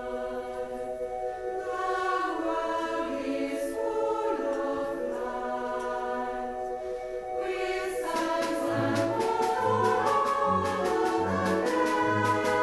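Choir singing long held notes over an instrumental accompaniment. About eight seconds in, a bass line and a steady ticking beat come in and the music grows louder.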